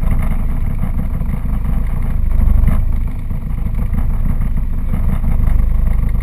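Fishing boat's engine running steadily, a loud low rumble.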